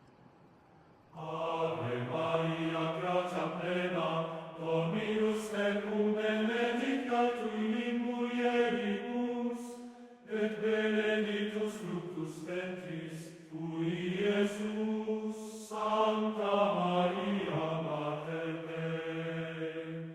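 A low voice chanting in long held notes that slide slowly up and down in pitch, starting about a second in and pausing briefly about halfway through.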